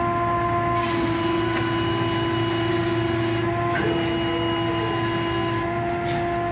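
Steady machinery drone with a constant even whine running unchanged throughout.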